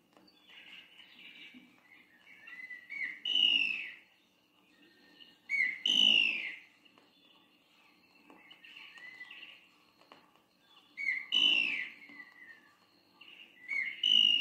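Antbird (papa-formigas) calling: four loud, sharply descending cries a few seconds apart, with softer chirps between them, from a forest field recording.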